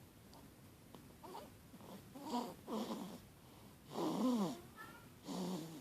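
Sleeping baby snoring: after a quiet start, about four short snores with a clear pitch, the loudest one near the four-second mark sliding down in pitch.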